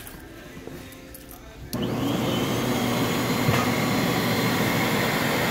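Portable carpet extractor's vacuum motor switching on abruptly after a few faint clicks, under two seconds in, then running steadily.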